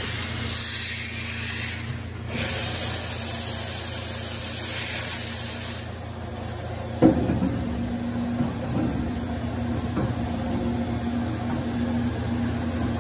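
Shinzawa twin-spindle CNC vertical machining center running with a steady low hum and hissing twice in the first half. About seven seconds in comes a sharp clunk, then a steady whine as the table moves.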